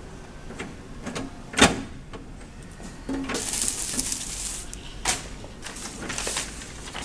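Handling noises on a hot laminating machine as its film roll and parts are worked by hand. There is a sharp knock about a second and a half in, a stretch of rustling hiss around three to four seconds, and another knock about five seconds in.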